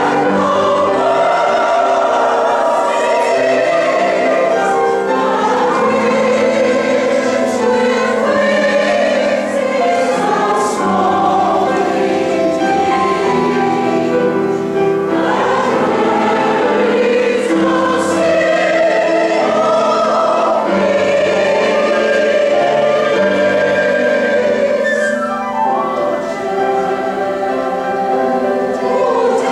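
Mixed choir of women and men singing in harmony, with long held chords.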